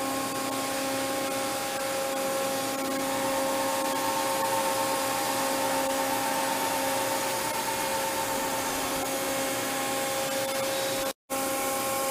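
Large gantry-type 5-axis machining center running: a steady hum of several tones over an even hiss, cutting out briefly near the end.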